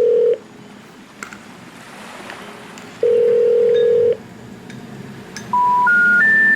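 Telephone ringback tone ringing twice, each a steady low two-note hum about a second long. It is followed by three short beeps stepping upward in pitch, the special information tone that comes before a 'number not in service' message.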